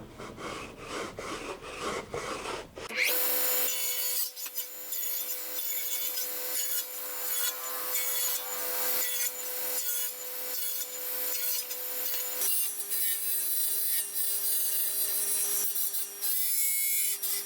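Table saw running while a wooden workpiece is rotated on a circle-cutting jig, the blade rasping again and again as it trims the edge into a circle. For about the first three seconds there is only a softer, repeated rubbing of wood.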